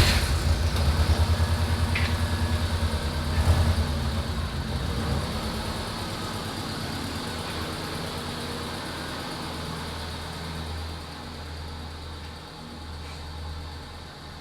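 Subaru GC8 Impreza's flat-four boxer engine idling just after starting, with an even low pulsing note that grows gradually quieter.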